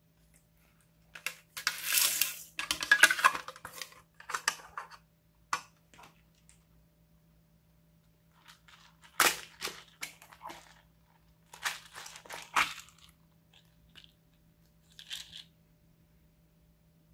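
Hard plastic craft storage cases being handled: irregular clicking and rustling in the first few seconds as trays of sequins are moved, then a sharp plastic click about nine seconds in and another run of clicks and rattles a few seconds later as a flower-shaped bead case is opened.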